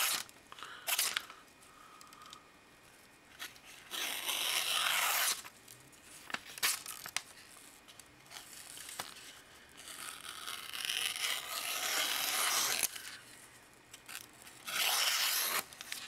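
The blade of a freshly sharpened and stropped Sanrenmu 710 folding knife slicing through a sheet of printed paper in a paper cut test of the edge. There is a series of hissing slices, some brief and some drawn out over a second or more, with a few small clicks between them.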